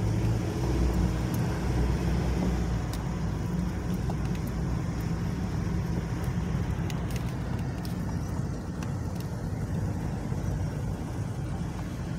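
Car engine and road noise heard from inside the cabin while driving slowly, a steady low rumble.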